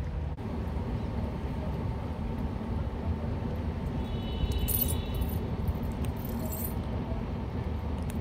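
Steady low rumble of outdoor street noise, with a few brief high jingling sounds about halfway through.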